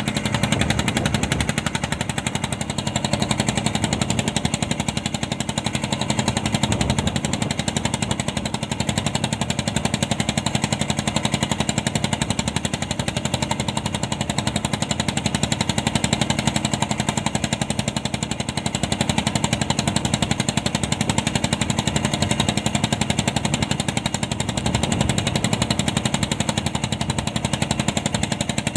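Fishing boat's engine running steadily with a rapid, even pulse, heard from on deck.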